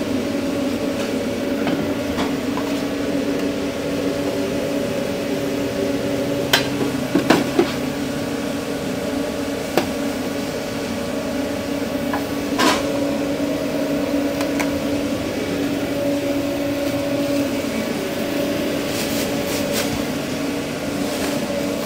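Steady machinery hum inside a food truck kitchen, with scattered sharp clicks and knocks of takeaway food being packed, a quick few about seven seconds in and another cluster near the end.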